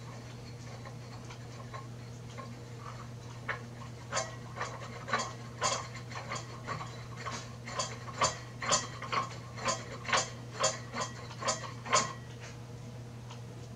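Metal counterweight bar being screwed by hand into an iOptron GEM45 equatorial mount, giving a regular clicking about twice a second that starts a few seconds in and stops near the end.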